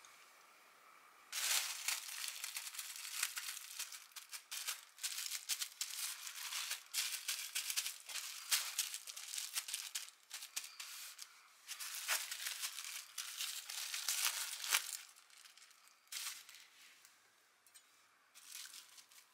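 Plastic wrap crinkling and crackling as it is wrapped tightly around a sandwich and pressed down by hand. Dense crinkling starts about a second in and dies down after about fifteen seconds, with a few softer crinkles near the end.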